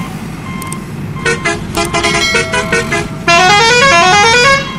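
Electronic beeping melody: a string of short synthetic notes, then about three seconds in a louder, fast run of rising notes that repeats, breaks off briefly and starts again near the end.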